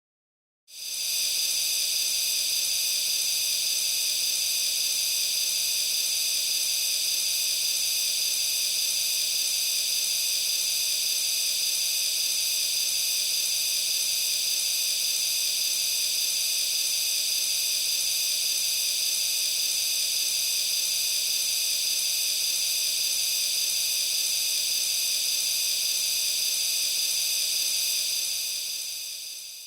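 Continuous hiss of pressurised gas escaping through a release. It starts abruptly about a second in, holds steady, and fades away near the end.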